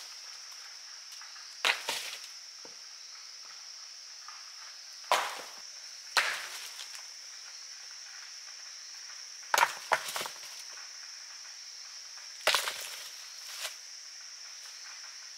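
About nine sharp knocks at irregular intervals, some in quick pairs, over a steady high-pitched drone of insects.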